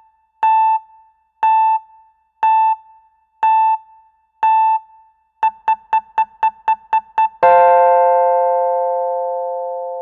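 Alert jingle played on an electric piano or keyboard. One note sounds five times, about once a second, then eight quick repeats, then a held chord from about three-quarters of the way in that slowly fades.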